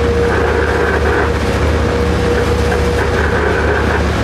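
Steady running noise heard inside the cab of a Coaster commuter train's leading cab car while it travels: a continuous rumble of wheels on rail with a low hum and a faint steady tone that fades about three seconds in.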